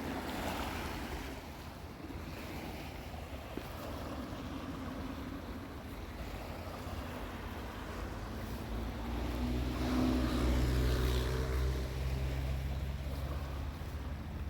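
Ocean surf washing onto the beach, with wind buffeting the microphone. From about eight seconds in, a low steady droning hum joins, loudest around ten seconds, then fades.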